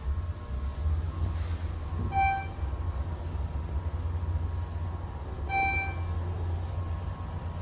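Schindler 400A hydraulic elevator running with a steady low rumble. A short electronic chime sounds twice, about two seconds in and again near six seconds.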